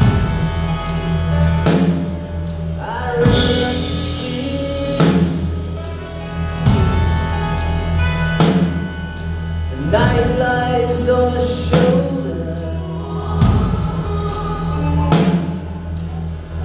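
Live band playing: drum kit, electric guitar and keyboards, with a slow, heavy drum beat over sustained chords.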